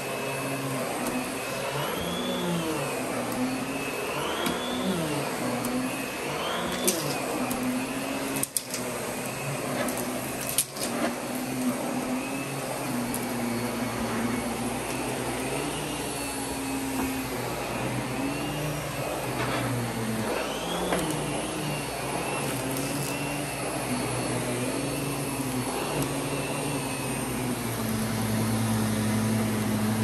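Miele vacuum cleaner running, its motor whine rising and falling in pitch every second or two, with a few sharp knocks in the first half.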